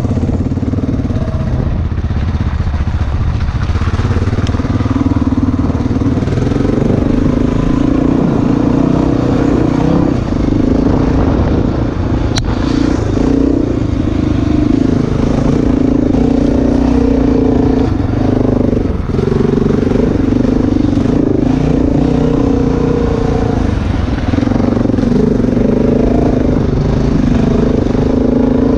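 Dirt bike engine running continuously under way, its pitch shifting up and down several times with the throttle.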